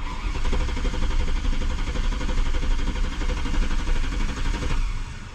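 2004 Mercedes S55 AMG's supercharged V8 being turned over by the starter motor for nearly five seconds without catching; the cranking starts abruptly and cuts off, and the engine does not start.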